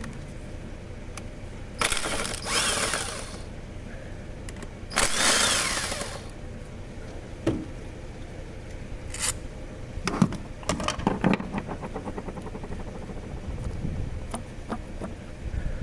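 A power tool runs in two short bursts, followed by a run of rapid clicks, during work on the ignition coil pack and spark plugs of an Opel engine with a misfire.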